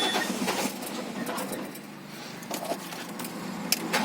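Peugeot 307 1.6 petrol four-cylinder engine running unevenly just after being cranked and catching. It starts because its Bosch ME7.4.5 ECU has been unlocked and the immobiliser no longer blocks the start.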